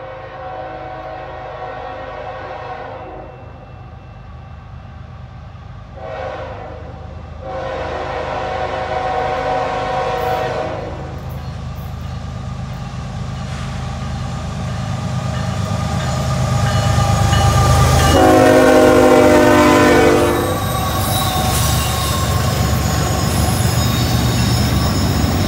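Approaching CN freight train's diesel locomotives blowing their air horn in several blasts: a long blast at the start, a short one about six seconds in, another long one from about seven to eleven seconds, and the loudest long blast near the end as the locomotives pass. Beneath, the rumble of the engines and wheels on the rails grows steadily louder.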